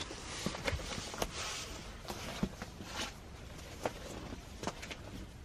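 Footsteps of a person walking up a stony, mossy slope: a loose, uneven series of crunching steps that grow fainter as the walker moves away.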